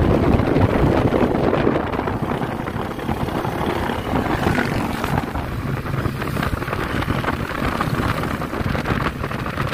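Wind buffeting the microphone over the steady engine and road noise of a moving vehicle, recorded from an open-sided passenger seat.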